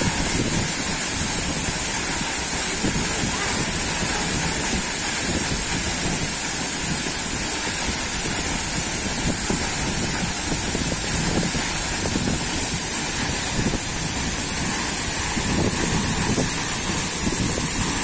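Tall waterfall pouring into a rocky plunge pool: a steady, unbroken rush of falling water.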